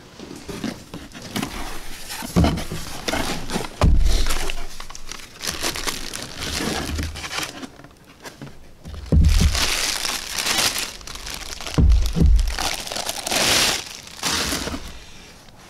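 Clear plastic bag crinkling and rustling as a new alternator is unwrapped by hand, with four dull thumps as the heavy part is handled.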